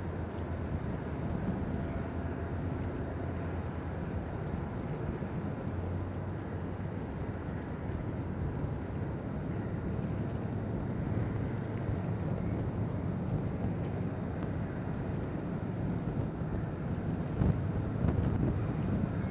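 Steady low rumble of a boat under way on open water, mixed with wind buffeting the microphone.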